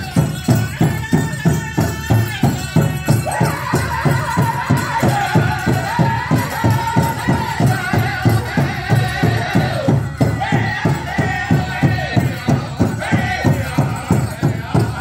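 Pow wow drum group singing a chicken dance song: voices in chorus over a fast, even beat struck on a big drum.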